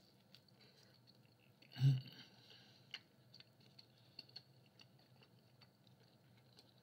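Faint close-up chewing of a mouthful of Hawaiian-style rising-crust pizza: scattered small wet mouth clicks and smacks. There is a brief low hum from the voice about two seconds in.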